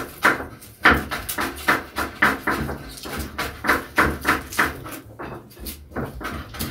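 Knife chopping on a cutting board: a steady run of short knocks, about two to three a second.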